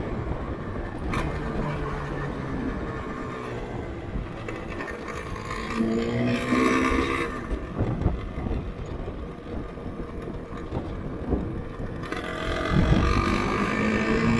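Yamaha RZV500R's two-stroke V4 engine on the road, revving up twice, about six seconds in and again near the end.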